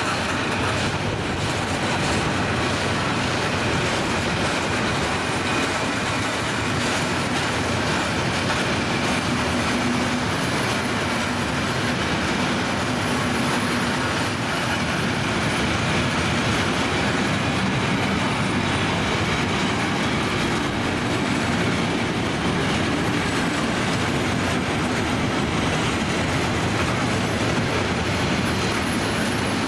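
Long container freight train's flat wagons rolling past on the rails, a steady, unbroken noise of wheels on track.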